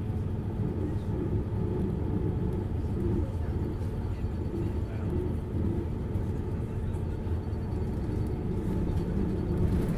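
Hino U-HT2MLAA Blue Ribbon bus's diesel engine and drivetrain running under way, a steady low drone with no clear change in pitch. This is a bus in poor condition with strong abnormal noise.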